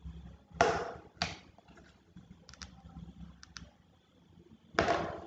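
A few light clicks at a computer. Three louder, short rushes of noise come about half a second in, again a moment later, and near the end.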